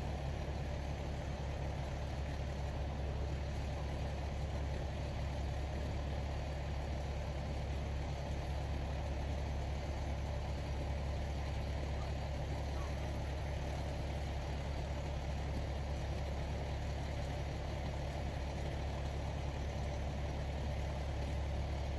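Vehicle engine idling, a steady low hum that holds unchanged throughout.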